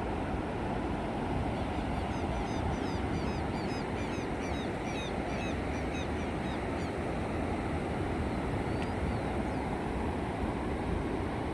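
Steady rush of sea surf on the shore. A small bird chirps rapidly over it, in quick high twitters, from about two seconds in to about seven seconds.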